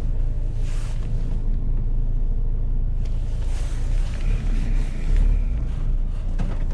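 Van engine and road rumble heard inside the cab, low and steady, with a couple of sharp clicks about three seconds in and near the end.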